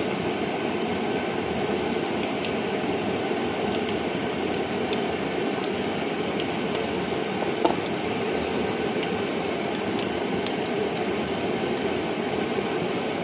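Ground pork sizzling steadily in a frying pan over a gas burner, with a few faint clicks of a spoon against the pan, mostly in the second half.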